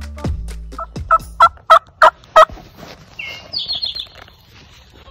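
A turkey yelping: six evenly spaced calls, about three a second, the first softer than the rest. A small bird chirps briefly just after.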